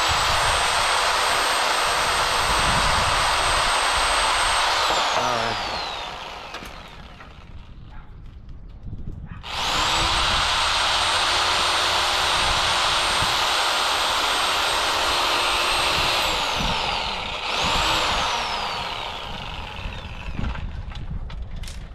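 Reciprocating saw with a pruning blade cutting through tree branches: the motor runs steadily for about five seconds and winds down, then runs again for about seven seconds and winds down, followed by a brief burst.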